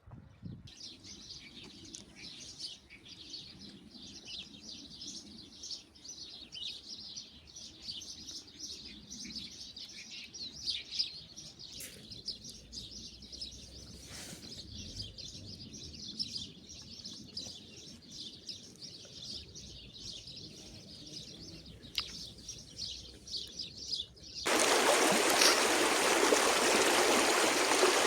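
Small birds chirping and twittering, many quick calls overlapping. About 24 seconds in, a loud rush of running stream water starts suddenly and covers them.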